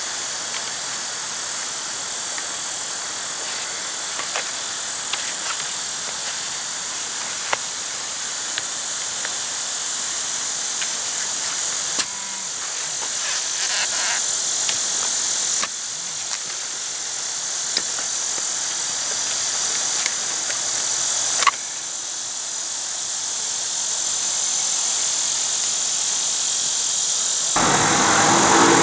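Steady high-pitched drone of an insect chorus in summer woods, with scattered sharp clicks over it. Near the end a louder rushing noise takes over.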